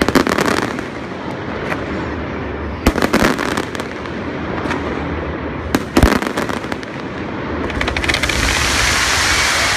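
Aerial fireworks bursting, with loud bangs at the start, about three seconds in and about six seconds in, and smaller pops between them. Near the end a steady hiss builds up.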